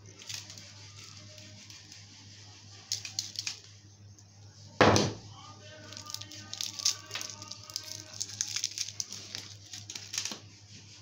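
Plastic lollipop wrapper crinkling and tearing as it is unwrapped by hand, in short crackly bursts and then a long stretch of crackling through the second half. A single loud knock sounds a little before halfway, over a steady low hum.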